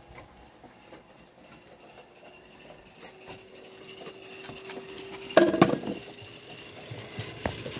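Small coal-fired live steam garden-railway locomotive running close by with its train: light metallic clicks and rattles over a faint steady tone, with a loud cluster of knocks and clatter about five and a half seconds in.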